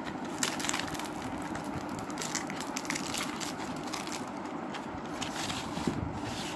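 Clear plastic film crinkling in a dense run of small crackles as hands handle and unwrap a roll of grosgrain ribbon.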